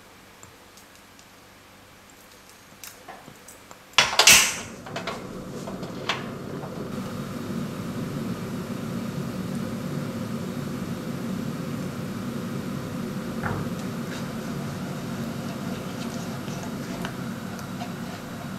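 A stove being switched on under a saucepan: a few light clicks, a loud short whoosh about four seconds in, then a steady low hum of the burner running.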